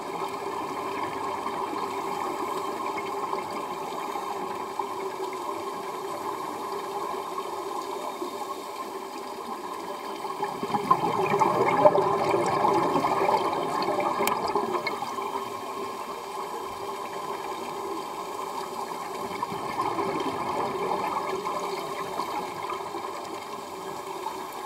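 Scuba diver's exhaled air bubbling out of a regulator and rising past an underwater camera housing, over a steady muffled hiss. The bubbling comes in slow swells, with the loudest one about halfway through.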